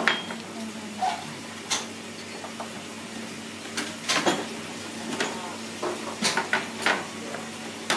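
Dishes and utensils clinking: a dozen or so scattered sharp clinks over a steady low background hum.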